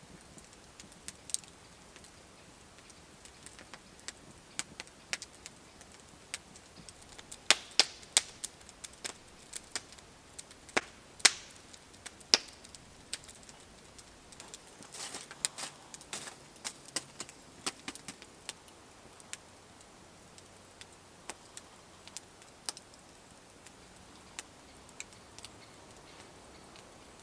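Scattered sharp clicks and light knocks at irregular intervals, busiest through the middle stretch, over a quiet background.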